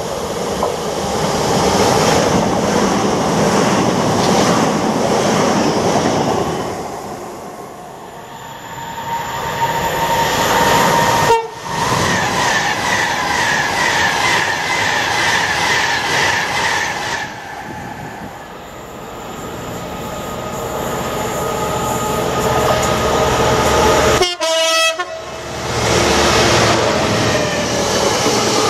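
Electric passenger trains passing a station platform at speed, first a Southern Class 377 unit, then a Virgin Class 390 Pendolino, with rising and falling wheel-on-rail rumble and clickety-clack over the rail joints. Near the end comes a freight train of bogie hopper wagons rolling past close by.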